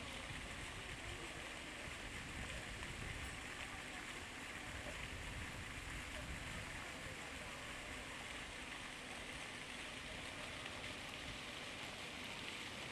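Steady outdoor ambience of a city construction site: a low rumble under an even hiss, with no distinct events.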